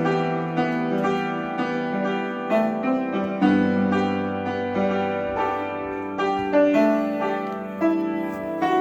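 Piano music: a calm melody played over sustained chords, with a note struck about every half second.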